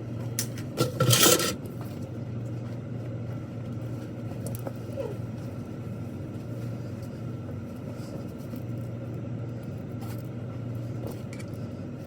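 A few knocks and scrapes in the first second or so, then the steady low hum of a car running, heard from inside the cabin.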